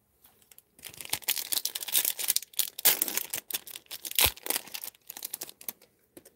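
Foil trading-card pack being torn open, the wrapper crackling and crinkling densely from about a second in, thinning to a few scattered crinkles near the end.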